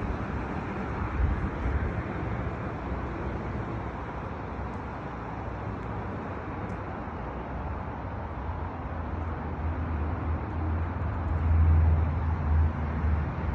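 Outdoor road traffic noise: a steady hiss with a low engine hum that grows louder over the last few seconds.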